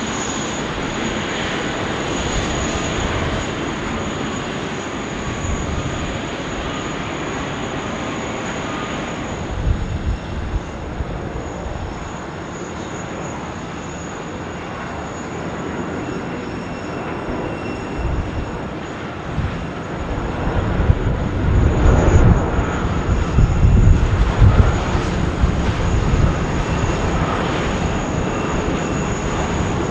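Jet airliner engine noise, a steady rush from an arriving widebody jet. A louder, deep rumble builds about two-thirds of the way through as an Airbus A330 comes in to land, then eases off near the end.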